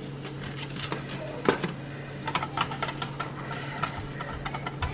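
Wooden spatula scraping and knocking against a nonstick frying pan while scrambled eggs are scooped out, a run of short, irregular scrapes and taps.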